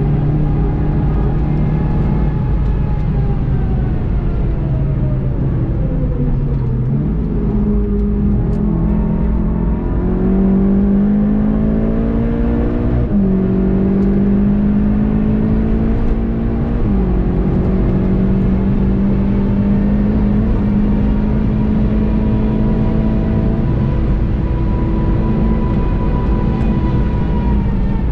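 VW Golf 7.5 GTI TCR's turbocharged 2.0-litre four-cylinder heard from inside the cabin, driven hard on track over steady road and wind noise. The engine note falls under braking, jumps up on a downshift about seven seconds in, then climbs through the gears with quick upshifts at about 13 and 17 seconds, holds high revs, and eases off near the end.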